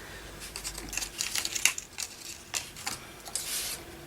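Paper rustling and crinkling in short irregular bursts as journal pages are handled, with a longer rustle near the end.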